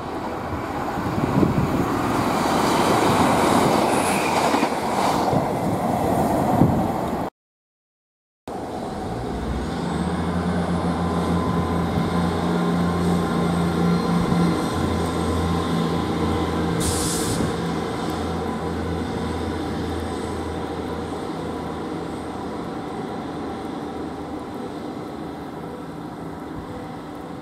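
Diesel trains at a station: for the first few seconds a loud rumble and rattle of a train on the tracks, rising and falling. After a short break in the sound, a Class 158 diesel multiple unit's engine runs with a steady low drone as it pulls away, slowly fading.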